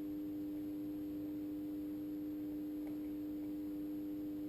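A steady, unchanging hum-like tone with a few fainter higher overtones, and a faint click about three seconds in.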